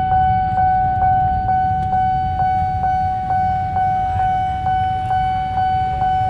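Railway level-crossing warning bell ringing without pause, struck about twice a second with each ring fading before the next, giving the warning that a train is approaching and the crossing is closing. A low rumble sits underneath.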